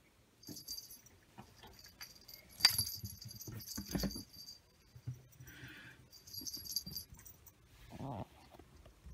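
Small bell on a cat's collar jingling three times in short spells as two cats chase and scuffle on a wooden floor, with soft thumps of paws and bodies, the heaviest about four seconds in.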